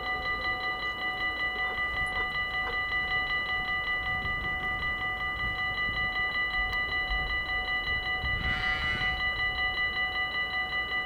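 Dutch level-crossing warning bell ringing fast and steadily, about four to five strikes a second, warning that a train is approaching while the barriers are down.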